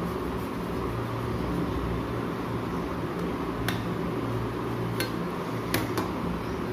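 A kitchen knife slicing a loaf of bread on a stainless steel plate, its blade knocking against the metal in four sharp clicks in the second half, over a steady background hum.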